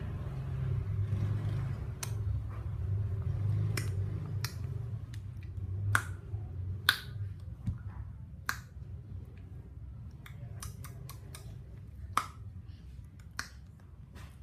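A dozen or so sharp, scattered clicks over a low steady rumble that fades away about halfway through.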